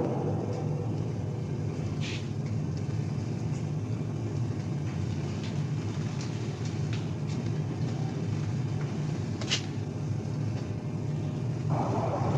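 Steady low rumble and hum of a submerged submarine's machinery, with faint clicks about two seconds and nine and a half seconds in. A louder sound swells in just before the end.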